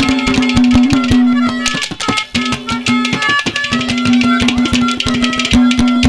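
Instrumental interlude of a Haryanvi ragni: hand drums playing a fast, dense rhythm under a melody of held notes that break off and start again.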